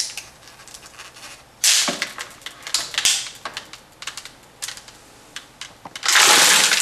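A plastic water bottle, crushed by the vacuum, and the plastic bag around it crackling and crinkling as they are handled, with louder bursts of crackling about two and three seconds in. Near the end a loud rush of breath is blown into the bottle, popping it back out to shape.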